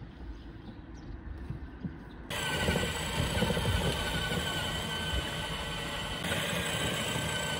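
Electric motors and gearboxes of a battery-powered ride-on toy Mercedes-AMG GLC 63 whining steadily as it drives along a paved road, with tyre noise. The sound starts abruptly about two seconds in, after a low outdoor rumble.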